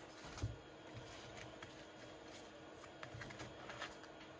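Pokémon trading cards being handled: faint, scattered light taps and clicks of card stock, with soft rustling between them.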